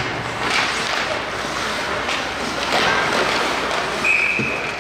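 Ice hockey game noise in an arena: a steady wash of skates on ice and crowd, with a few sharp knocks of sticks or puck. Near the end, one short high whistle blast, like a referee stopping play.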